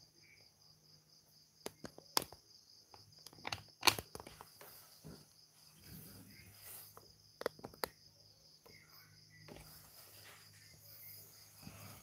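Scattered light clicks and soft rustles of hands gathering dry pieces of swiftlet nest on a wooden table, sharpest about two and four seconds in. A steady high-pitched pulsing trill runs underneath.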